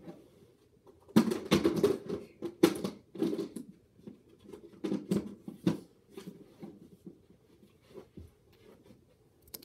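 Irregular bursts of scratchy rustling with a few sharp knocks, starting about a second in and dying away after about six seconds into faint scattered ticks.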